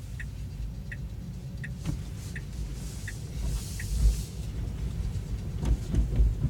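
Short high electronic beeps from a Tesla Model 3's cabin speakers, evenly spaced about every 0.7 s and stopping about three seconds in, over low road rumble inside the moving car, with a few low thumps near the end.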